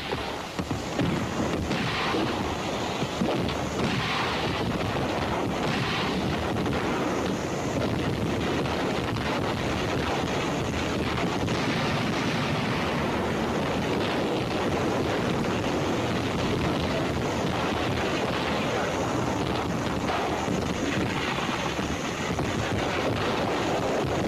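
Artillery and mortar barrage: a dense, continuous rumble of shell bursts and gunfire running together, with a few sharper blasts standing out in the first few seconds.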